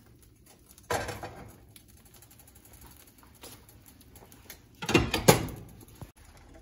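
Bánh xèo rice-flour batter hitting a hot oiled pan, in two short bursts of sizzling: one about a second in, a louder one near five seconds. Each dies away quickly.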